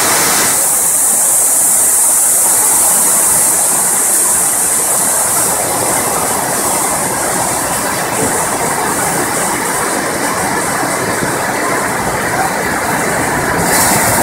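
Heavy storm rain and fast-running floodwater, a loud, steady rush of water with no let-up.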